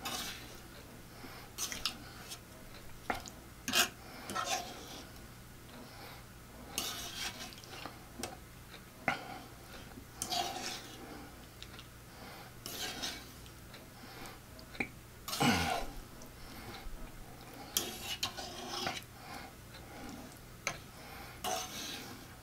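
A metal fork clinking and scraping against a tray in irregular short bursts as pieces of barbecue pork chop are scooped into tortillas, with one louder sweeping sound about two-thirds of the way through.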